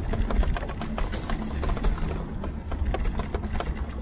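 Tern HSD compact electric cargo bike ridden over a rough path, heard through its handlebar mount: a steady low tyre-and-wind rumble with a stream of irregular knocks and rattles as the bike jolts over the uneven surface.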